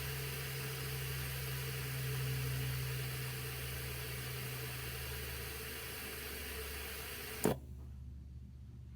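Compressed air hissing steadily out of a tyre through an automatic digital deflator's valve as it lets the tyre down toward its 20 psi target. The hiss cuts off with a click about seven and a half seconds in as the valve shuts.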